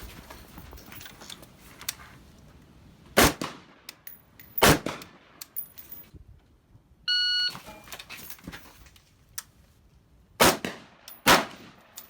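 Four rifle shots from a semi-automatic M16A1-style AR-15 with a 20-inch barrel, fired in two pairs: the first two about a second and a half apart, the second two under a second apart. Between the pairs comes a short, steady electronic beep lasting about half a second.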